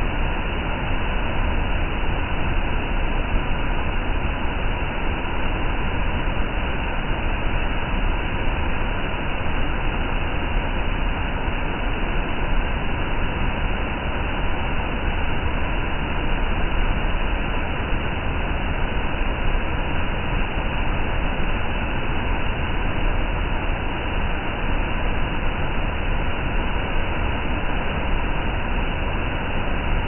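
Water pouring over a masonry river weir: a steady, unbroken rush of falling water with a deep rumble.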